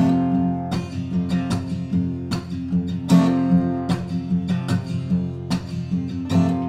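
Acoustic guitar strummed in a steady rhythm, the chords ringing on between strokes.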